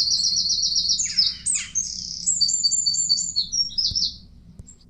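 Small bird chirping and twittering in quick high-pitched trills and warbles, stopping about four seconds in.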